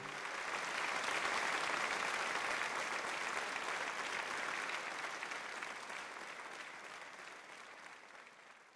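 Audience applauding, a dense even clapping that builds over the first second or so and then fades away gradually to almost nothing.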